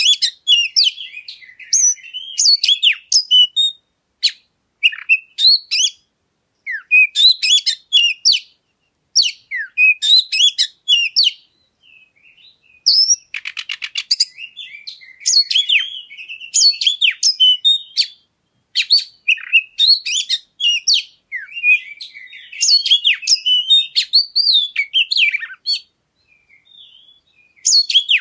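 Oriental magpie-robin (kacer) singing: varied high-pitched whistled and chattering phrases separated by short pauses, with a rapid harsh buzzing rattle about halfway through. It is a pancingan recording, meant to provoke a kept magpie-robin into singing.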